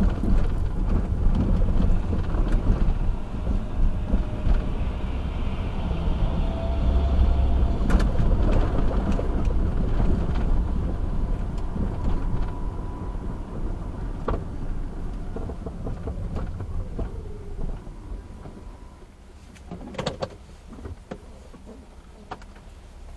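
City driving heard from inside a car: a steady low rumble of engine, tyres and passing traffic with scattered knocks and rattles, easing off about three-quarters of the way through as the car slows to a stop. A short cluster of sharp clicks comes near the end.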